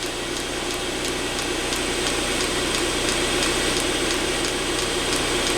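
Eberspacher D1L diesel heater trying to start: its combustion-air fan running steadily while its fuel dosing pump ticks about three times a second.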